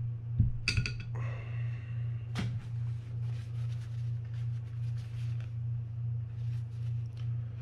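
Small reel parts clink and knock on the bench, then a paper shop towel rubs and scrapes around the inside of a fishing-reel spool in quick, faint strokes. A steady low hum runs underneath.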